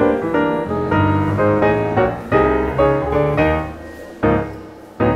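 Background piano music: a melody of struck notes that ring and fade, with a few louder chords in the second half.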